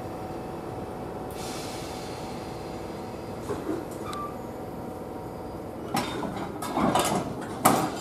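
Steady electrical hum from stationary Class 321 electric multiple units standing at the platform. A few sharp knocks and clatters come near the end, the last one the loudest.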